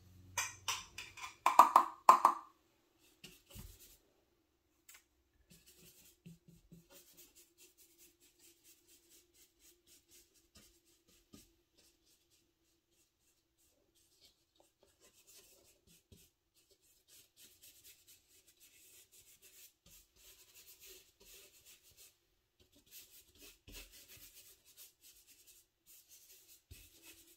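Paintbrush dabbing and stroking paint onto heavy watercolour paper: faint, short scratchy brush strokes with pauses between them. A few louder scrapes come in the first couple of seconds.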